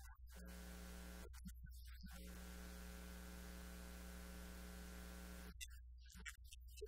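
Faint steady electrical buzz: an unchanging multi-tone drone over a constant low mains hum and hiss. The buzz breaks off for about a second near the start and stops about five and a half seconds in, leaving only the low hum.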